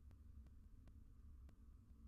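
Near silence: a faint low rumble with a few faint scattered clicks.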